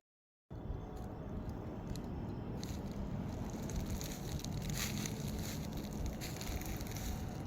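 A half-second drop to silence, then steady rushing background noise with scattered faint crackles.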